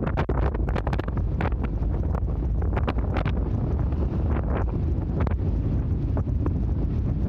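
Strong wind buffeting the microphone aboard a sightseeing icebreaker, over a low steady rumble, with scattered sharp cracks and knocks throughout.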